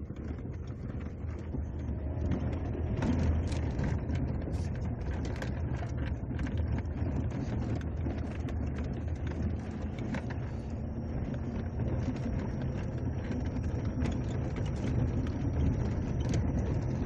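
Small pickup truck driving on a dirt road, heard from inside the cab: a steady low engine and tyre rumble with frequent small rattles and knocks from the rough surface.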